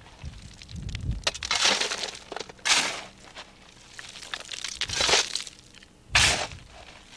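Shovel scooping coal from a pile and tipping it into a bucket: about four scoops, each a short gritty rattle of coal lumps.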